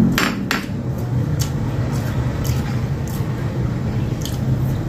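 Tableware clinks at a meal: two sharp clinks of glassware near the start, then a few fainter clicks of dishes, over a steady low hum.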